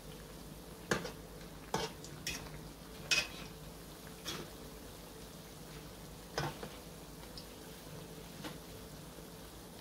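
Qatayef shallow-frying in hot oil with a steady sizzle, while a metal fork turning them clinks sharply against the pan about seven times, mostly in the first seven seconds.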